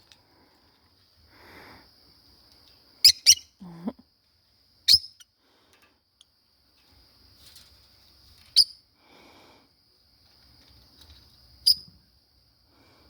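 Pet lovebirds giving short, sharp, high-pitched chirps: a quick pair about three seconds in, then single chirps every few seconds, over a faint steady high-pitched tone.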